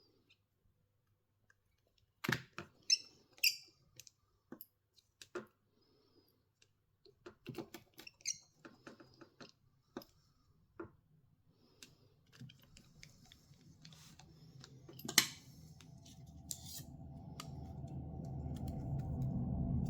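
Scattered small clicks and taps of phone parts and small tools being handled during reassembly. Background music fades in and grows louder over the last several seconds.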